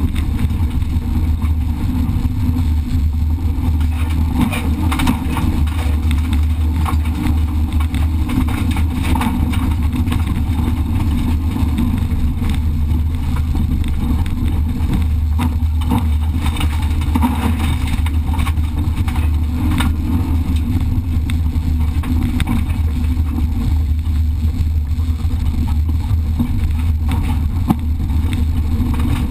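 Rally car engine running hard on a gravel stage, heard from inside the cabin, with gravel crackling and pinging against the car throughout.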